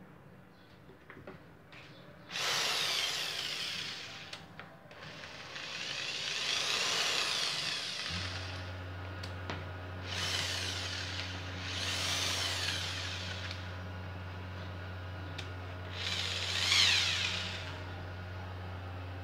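Corded Bosch GSR 7-14 E drill/driver motor run in five short bursts, its whine rising in pitch as it speeds up and falling as it is released. A steady low hum comes in about a third of the way through.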